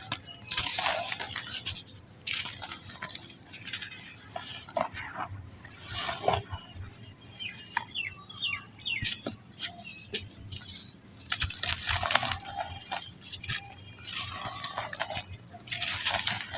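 Balls of very soft, dry black sand being crumbled, a gritty crunching and trickling that comes in repeated bursts, loudest about a second in and again after eleven seconds.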